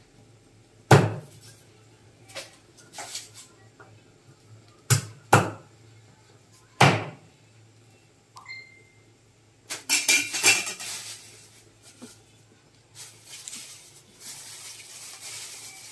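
A cleaver chopping down onto a wooden chopping board: several sharp, irregularly spaced chops, the loudest about a second in and between five and seven seconds in. Then a burst of clattering around ten seconds in and a longer rustling near the end as things are handled.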